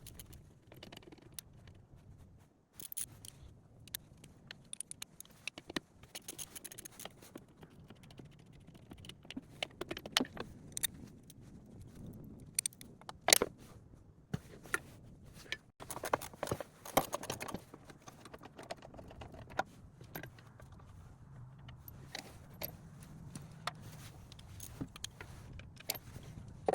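Hand tools clinking, knocking and scraping against metal engine parts in irregular bursts, with the sharpest clink about 13 seconds in, over a low background hum.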